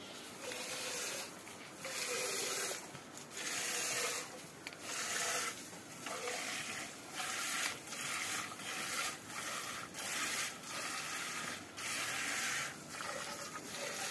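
Milk spurting from a water buffalo's teats into a metal pail during hand milking: a hissing squirt about once a second, in a steady rhythm.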